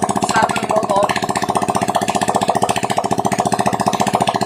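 Freshly rebuilt Honda XRM125 single-cylinder four-stroke engine running steadily on a test run after its overhaul, with a fast, even train of firing pulses.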